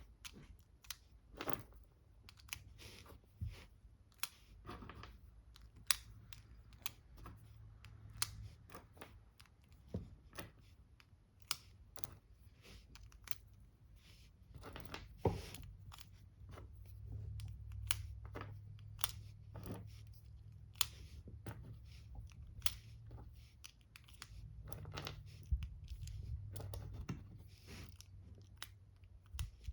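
Irregular light clicks, taps and brief rustling of a small cardboard ammunition box and its .22LR cartridges being handled, with a low hum underneath.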